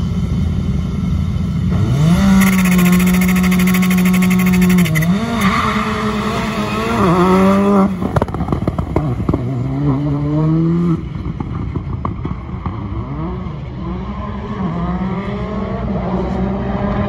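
Rally car engine revved up and held steady at the start line for about three seconds, then launching. It accelerates hard through the gears, with the pitch climbing and dropping at each upshift, twice in quick succession.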